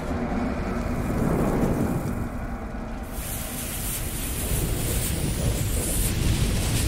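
Sound-effect burning fuse and fire: a hiss over a low rumble, the hiss growing brighter about three seconds in.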